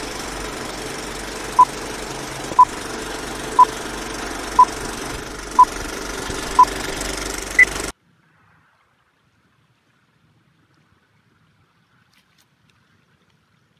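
Film-countdown leader sound effect: the steady whirring rattle of a film projector with short beeps one second apart, six at one pitch and a seventh higher one. The sound cuts off suddenly about eight seconds in, leaving near silence.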